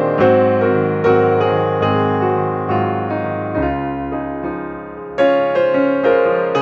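Background piano music: a melody of single notes struck about twice a second over held bass notes.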